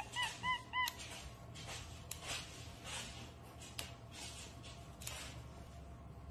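A capuchin monkey gives a quick run of about four short, high, arching chirps in the first second. Scattered soft snaps and rustles of green beans being broken by hand follow.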